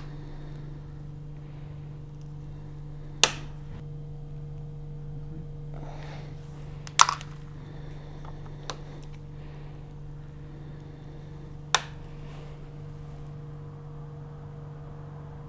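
Sharp plastic clicks and taps from a micropipette and sample tubes being handled while loading an agarose gel, five in all, the loudest and doubled about seven seconds in. A steady low hum runs underneath.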